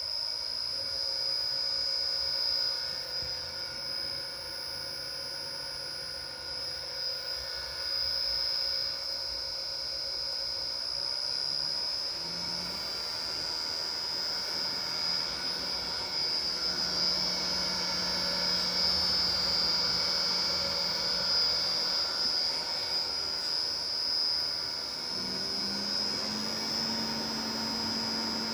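An electric motor run from a Danfoss FC-102 variable-frequency drive on a test after repair: a steady high-pitched whine from the drive's switching, over a lower hum that steps up in pitch about twelve seconds in and again near the end as the output speed is raised.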